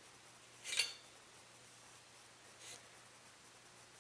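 Cleaning rod with a wire bore brush scraping through a Remington Versamax shotgun barrel: a sharp scrape about a second in and a fainter one near three seconds.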